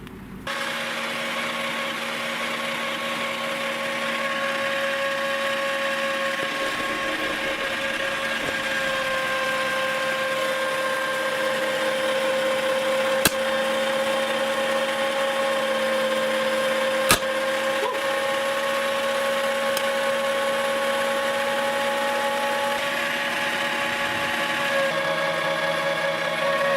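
Electric meat grinder motor starting about half a second in and running with a steady whirring hum. Two sharp clicks break through it, about midway and a few seconds later.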